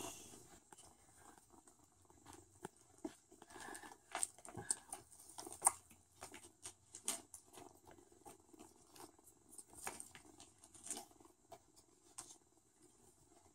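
Faint, irregular light taps, clicks and rustles of a kitten's paws and claws on a mesh pop-up laundry hamper as it bats at a dangled toy.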